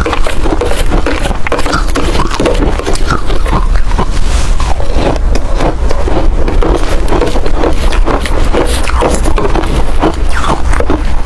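Close-miked chewing of ice: a dense, loud, irregular run of crunches and cracks as the ice is bitten and ground between the teeth.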